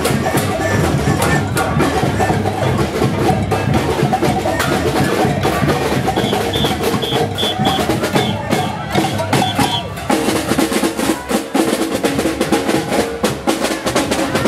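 Street percussion band playing large samba-style drums in a steady beat. A quick run of short high tones comes around the middle, and the drum hits stand out more sharply toward the end.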